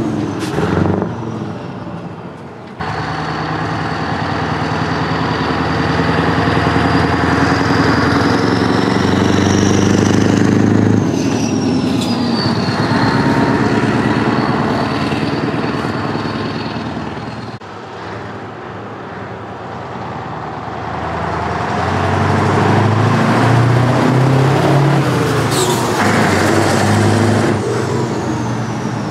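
Scania trucks with open exhaust pipes driving slowly past one after another, their engines loud and deep, each pass swelling and fading. A high whistle rises and falls above the engine note in the first long pass, and a short sharp hiss comes about 25 seconds in.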